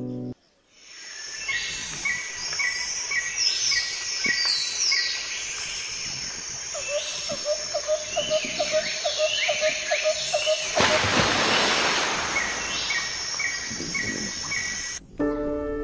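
Several birds calling: rows of short repeated chirps and downward-sweeping calls, with a fast run of lower notes for a few seconds in the middle. A brief rushing noise comes about eleven seconds in, and music cuts back in near the end.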